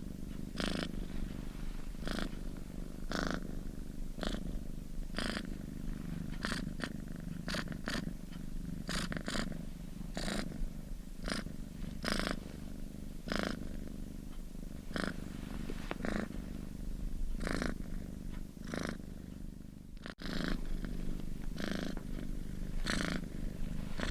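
Domestic cat purring steadily close up, the purr swelling into a brighter rasp roughly once a second with each breath in and out. There is a momentary gap about twenty seconds in before the purring resumes.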